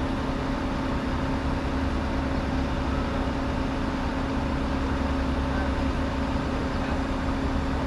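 Truck engine idling steadily: a constant low rumble with an even hum that does not change.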